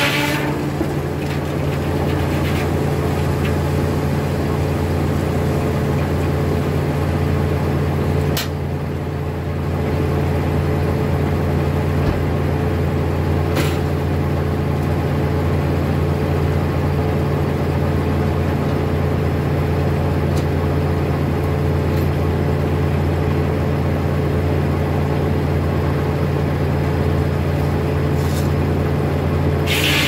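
Foley Belsaw circular sawmill running with a steady low drone. A couple of sharp knocks come about a third of the way in and near the middle.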